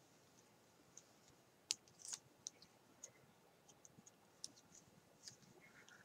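Faint, irregular clicks of metal circular knitting needle tips tapping together as stitches are worked, about a dozen in all, with near silence between them.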